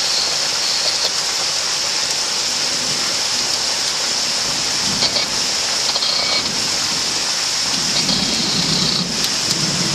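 Heavy thunderstorm rain pouring steadily, a constant hiss, with a low rumble rising under it near the end.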